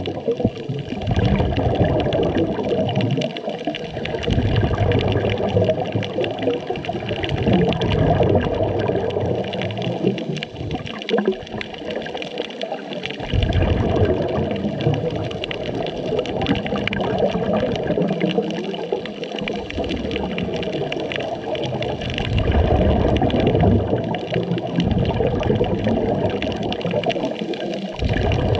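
Underwater rush of scuba divers' exhaled bubbles and regulator breathing, swelling and easing in waves every few seconds.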